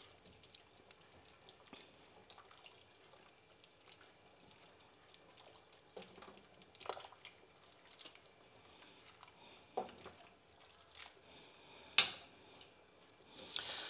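Spaghetti being stirred in a stainless steel saucepan of boiling water: faint bubbling with scattered light clicks of the utensil against the pot, the sharpest about twelve seconds in.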